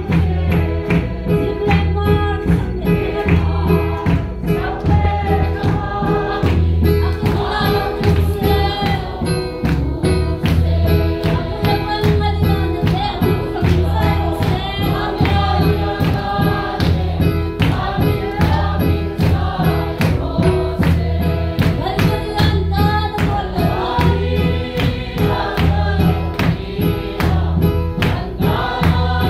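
Congregation singing a lively gospel song together to a steady beat, with hand clapping.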